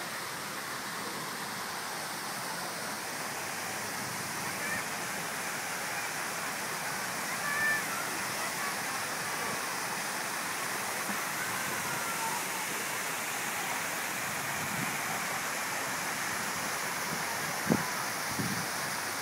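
Steady rush of splashing water from a pool fountain, with faint distant voices of people at the pool and one sharp click near the end.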